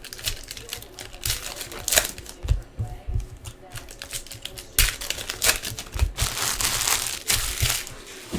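Plastic trading card pack wrappers crinkling and tearing as hobby packs are handled and ripped open, with irregular sharp crackles and a longer stretch of continuous rustling near the end.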